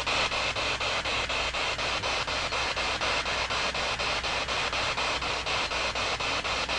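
Spirit box sweeping through radio stations: a steady hiss of radio static chopped by even breaks about five times a second.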